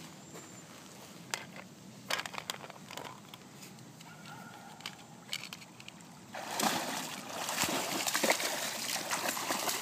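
Dogs splashing through shallow pond water, loud and continuous from about six seconds in; before that only a few faint small splashes.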